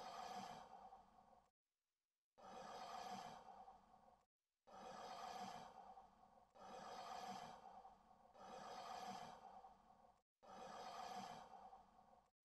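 A man breathing: six long breaths of about two seconds each, with short pauses between.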